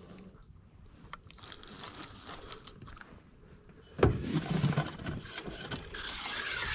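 Handling noise from fishing rods and reel in a boat while a fish is being played: scattered light clicks, then a sudden knock about four seconds in, followed by scraping and rustling.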